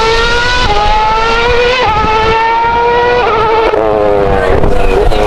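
Formula One car's 2.4-litre V8 engine running at pit-lane speed: a high engine note that climbs slowly in pitch with a few small steps, then turns unsteady and wavering in the last couple of seconds.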